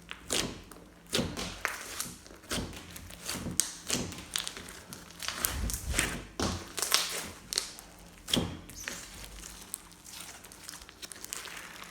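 Glossy slime being mixed and kneaded by hand: irregular sticky clicks and soft thuds, a few to every second.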